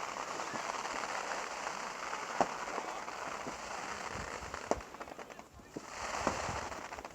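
Fireworks crackling steadily, with a few sharp pops; the crackle fades briefly about five seconds in, then swells again.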